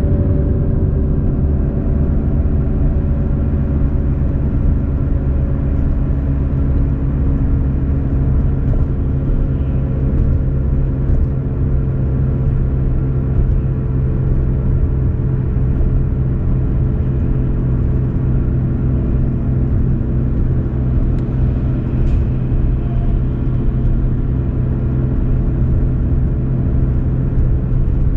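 Chevrolet Malibu engine running steadily: a low, even drone with several steady tones above it. The car's alternator is failing and the engine is in reduced power mode.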